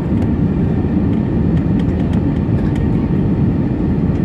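Steady low rumble of a jet airliner's engines and airflow, heard inside the cabin at a window seat during the descent to land, with a few faint small clicks in the middle.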